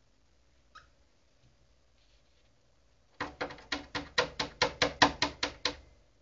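A parrot tapping its beak against a computer monitor: a quick run of about a dozen sharp knocks, some five a second, starting about three seconds in and lasting two and a half seconds.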